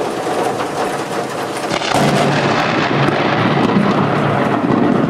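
Loud, sustained rumble of thunder from a lightning strike.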